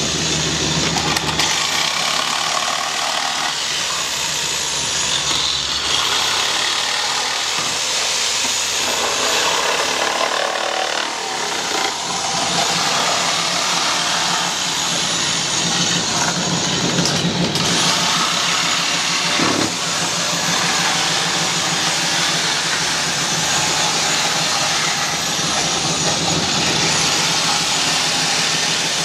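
Steady, loud mechanical din with a low hum underneath, holding without letup.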